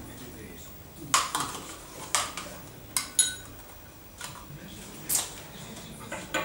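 Metal spoon clinking against a bowl and yogurt cup as yogurt is spooned out: about six separate sharp clinks, one a little past three seconds in ringing briefly.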